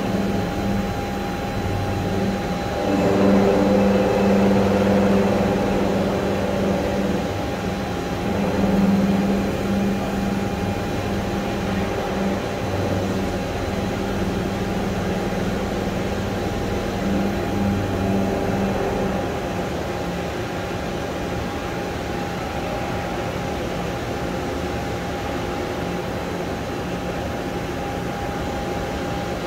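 Steady hum of a CNC horizontal boring mill under power, several steady tones sounding at once. About three seconds in it grows louder with extra whining tones for a few seconds, and it swells again briefly around nine seconds.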